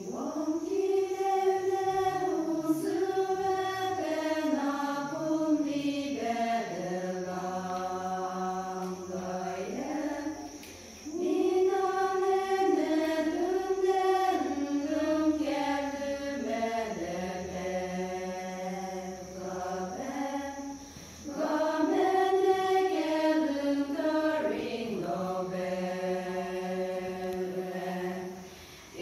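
Women's choir singing a hymn together in three long phrases of held notes, with short breaks between the phrases.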